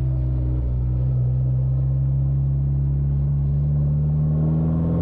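Straight-piped 1.9-litre ALH TDI four-cylinder turbodiesel in a 1981 VW Rabbit pickup, heard from inside the cab while driving: a steady, loud, low exhaust drone. Its pitch slowly rises, then climbs faster near the end as the engine picks up revs.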